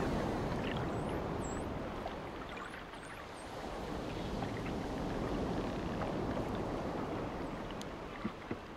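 Sea water rushing and splashing in a boat's wake, swelling and easing, with a few faint high chirps in the first few seconds and two small clicks near the end.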